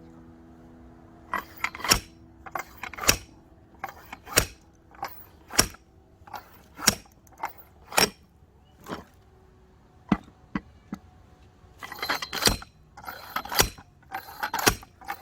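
Wedge-type splitting axe chopping firewood: a series of sharp strikes roughly once a second, coming closer together near the end.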